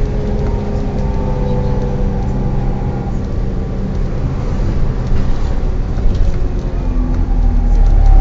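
Volvo B7TL double-decker bus running, its engine cooling fan giving a steady whine of several tones, the 'hoover' noise, over the engine's rumble, growing louder near the end.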